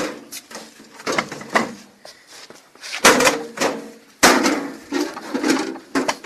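Knocks and clatter of a sheet-metal microwave-oven casing being handled and opened, with two louder metallic knocks about three and four seconds in.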